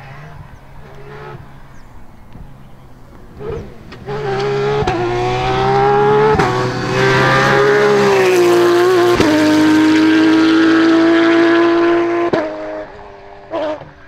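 Porsche 911 GT3 rally car's flat-six engine, faint at first, then loud at full throttle about four seconds in as it comes past, its note rising and falling through several sharp gear changes. It holds a high steady note for a few seconds before dropping and fading as the car pulls away, with a short blip near the end.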